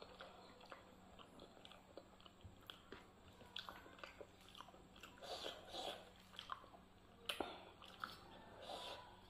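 Close-up eating sounds: soft wet squishing and small clicks as fingers mix rice with dal on a plate, along with chewing. A sharp click sounds about seven seconds in.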